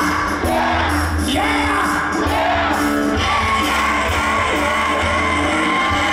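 Loud amplified live band music with a singer, heavy bass thumping underneath, heard from the crowd.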